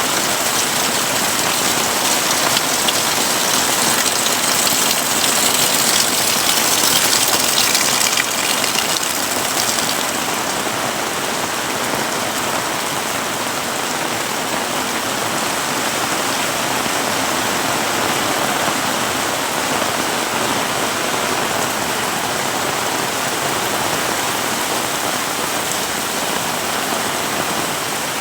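Heavy rain pouring steadily, a dense hiss of drops hitting surfaces. The high hiss is brighter at first and eases about ten seconds in.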